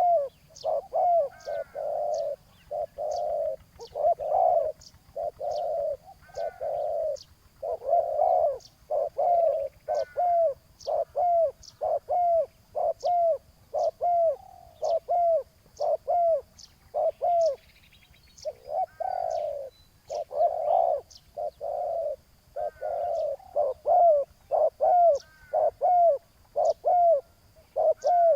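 Spotted doves cooing over and over, short coos and longer drawn-out ones following each other almost without a break. A faint high tick recurs about once a second in the background.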